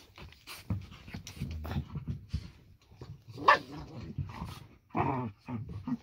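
Two dogs play-fighting, growling and grumbling at each other as they mouth and scuffle. There are louder vocal outbursts about three and a half seconds in and again around five seconds.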